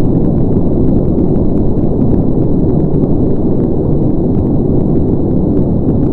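Loud, steady low engine roar with a faint crackle running through it: a dubbed-in rocket or jet-style rumble sound effect.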